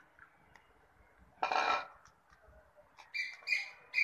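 A folded paper slip rustles for about half a second as it is drawn from a plastic bowl and opened. About three seconds in come three quick, high chirps, one after another.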